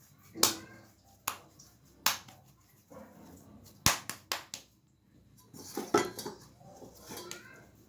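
Wheat paratha dough being divided and shaped into balls by hand: about six sharp slaps and taps in the first half, then softer handling and rustling.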